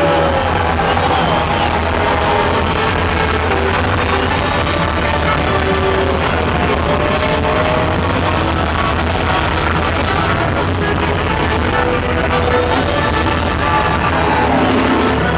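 Live funk band playing loudly, a full ensemble with saxophones, keyboards, electric guitars and drums.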